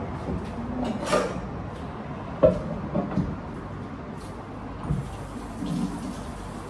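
Kitchen prep handling sounds: scattered knocks and clicks of things being picked up and set down on the counter, the loudest a single sharp knock about two and a half seconds in, over a steady background hum.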